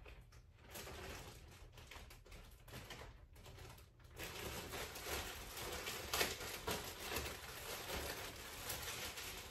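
Clear plastic bag rustling and crinkling as skeins of yarn are pulled out of it and handled, growing denser and louder about four seconds in.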